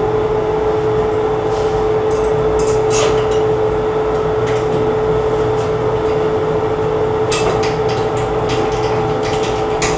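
A steady hum at one pitch throughout, with scattered light clicks and scrapes of a hand screwdriver driving a screw through a towel-bar bracket into the wall, several in quick succession near the end.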